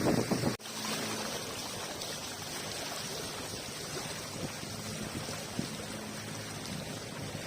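Steady rush of flowing river water. A louder, lower sound cuts off abruptly about half a second in.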